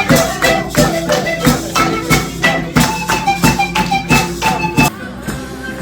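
Lively music: a quick, steady percussion beat under a melody of held notes. The beat stops about five seconds in.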